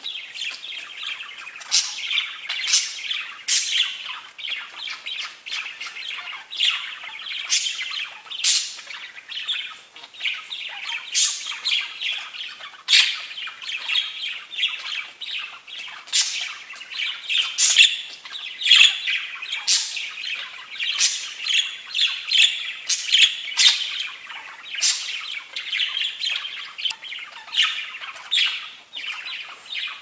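Several budgerigars chattering together in a continuous warbling stream, broken by frequent short, sharp high chirps.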